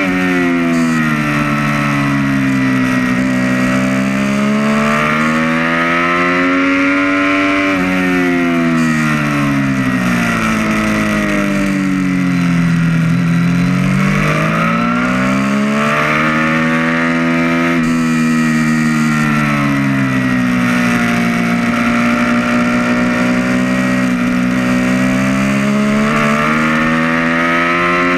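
2012 Triumph Street Triple R's 675 cc inline-three engine heard from on board at track pace, its note sweeping down and back up again and again as the rider rolls off into corners and accelerates out, with sudden steps in pitch at gear changes.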